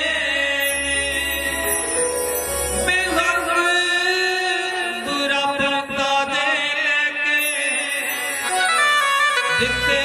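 Man singing a Punjabi devotional song in long, held, wavering notes, accompanied by a harmonium.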